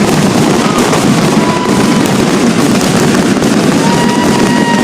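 Aerial fireworks going off in a loud, dense, continuous barrage of crackles and bangs, with a few thin whistling tones over the top.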